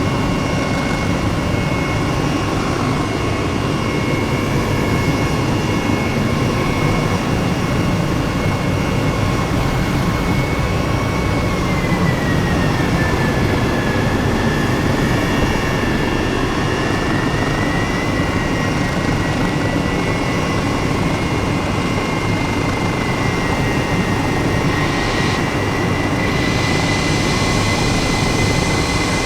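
Jet aircraft engine running steadily, a loud even rush with a high whine that sags slightly in pitch about halfway through and then recovers.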